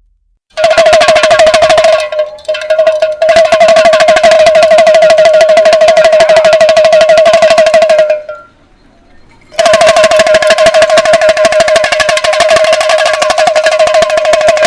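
Damru, the small two-headed pellet drum, rattled fast by a twist of the wrist so the knotted cords strike both heads, giving a dense steady rattle on one ringing pitch. It falters briefly a couple of seconds in, stops about eight seconds in and starts again about a second and a half later.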